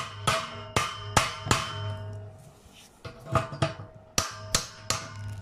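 Metal tool, most likely a hammer, striking the steel tube of a bed leg: about ten sharp blows in two bunches with a short pause in the middle, each one ringing.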